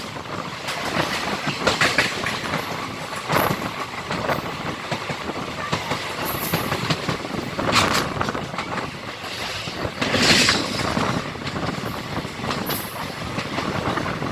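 Passenger coaches of the Siddhaganga Intercity Express running at speed: a steady rush of wind and rolling wheels, with the wheels clattering louder over rail joints several times, a few seconds apart.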